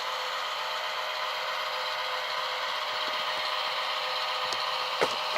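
Tsunami sound decoders in HO-scale model diesel switchers playing a steady EMD switcher engine sound through small onboard speakers, thin and without bass. A single click about five seconds in.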